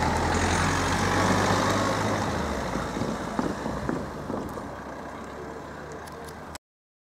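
Class 170 diesel multiple unit moving away: a low diesel engine hum and rolling wheel noise that fade steadily, then cut off suddenly near the end.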